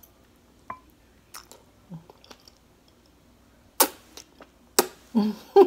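Spaghetti being eaten: quiet chewing with small mouth clicks, then two short, sharp slurps of noodle strands about a second apart near the end.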